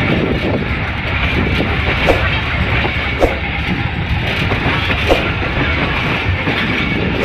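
Passenger train running along the track: a steady rumble of wheels on rails, broken a few times by a sharp clack as the wheels cross rail joints.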